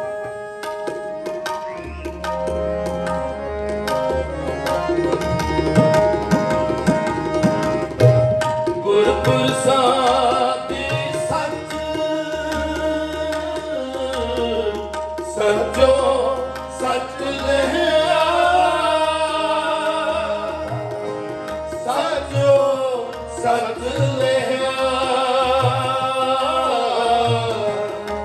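Sikh kirtan: harmoniums holding steady chords under a rhythmic tabla accompaniment, with a male lead voice singing the shabad over them from about nine seconds in.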